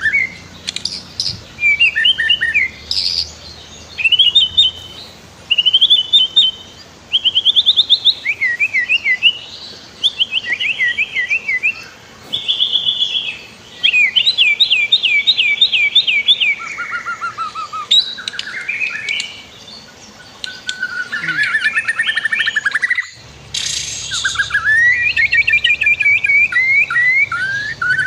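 White-rumped shama (murai batu) singing a long, varied song: a steady run of loud whistled phrases and rapid trills, one after another with short pauses.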